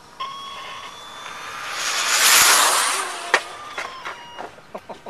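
High-speed electric RC car making a speed run past the camera: a high motor whine with rushing noise swells to a loud peak about two and a half seconds in, then fades as it goes away. A sharp crack comes a little after three seconds, and a quick run of clicks follows near the end.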